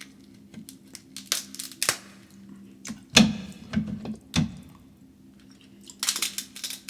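Close-miked eating sounds: irregular sharp clicks, smacks and taps from mouth, hands and food, with a busier crackly stretch near the end. A steady low hum runs underneath.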